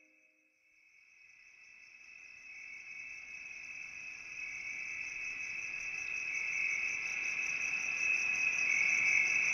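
Crickets chirring steadily in a high trill, fading in from silence over the first couple of seconds and growing louder.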